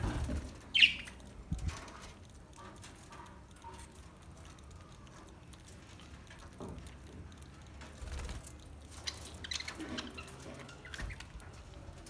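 Budgerigars: a brief flutter of wings as one flies at the start, one loud sharp chirp about a second in, and a few softer chirps in the last few seconds.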